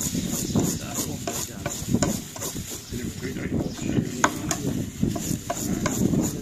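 Knife blade scraping the scales off a whole fish on a table, in quick, uneven back-and-forth strokes.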